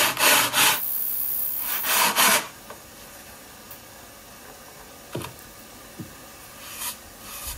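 Ukulele sides, held in a mold, scraped back and forth on sandpaper in a 12-foot radius dish. This sands a radius into the rim's edge. The sanding strokes stop after about two and a half seconds, followed by a few faint knocks.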